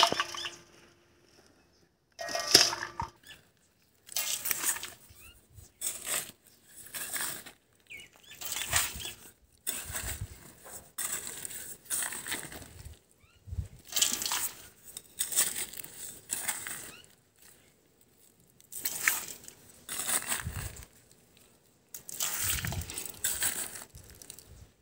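Dry yellow clay soil scooped by hand and with a small metal scoop from a woven basket into a metal pan: a run of separate scraping, pouring scoops with short pauses between them.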